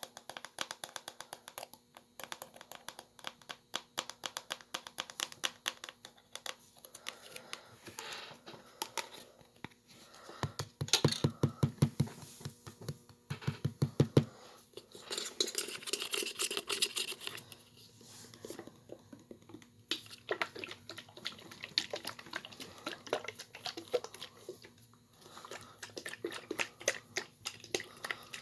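Fast, quiet clicking of laptop keys being typed and tapped, with a run of louder taps a little before the middle and a few seconds of scratchy rubbing just after it.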